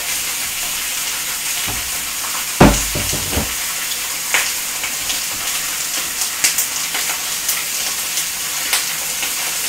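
Chicken thighs frying skin side down in a pan, a steady sizzle, with occasional clinks of a whisk in a metal saucepan of barbecue sauce. A loud knock, with a few lighter ones after it, comes about two and a half seconds in.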